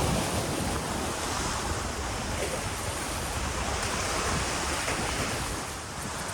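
Steady rush of ocean surf and wind, with wind rumbling on the microphone.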